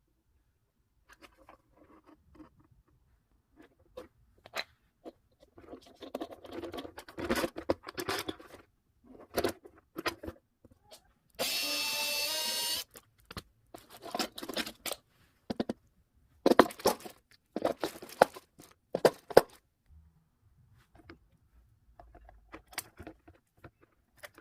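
Irregular crunching, scraping and clattering of things being handled, with one steady buzzing tone lasting just over a second about halfway through.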